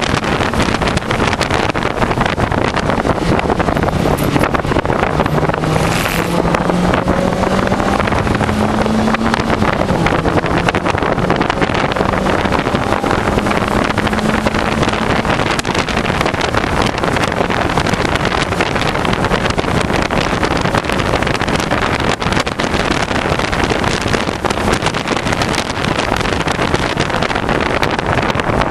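Mazda Miata's four-cylinder engine pulling at track speed, heard from inside the cabin under a loud, steady rush of wind and road noise. The engine note climbs for several seconds, then drops back about ten seconds in.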